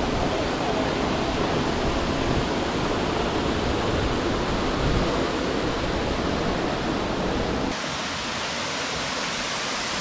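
Waterfalls pouring into a pool: a steady, even rush of falling water. Near the end it drops to a softer, thinner rush.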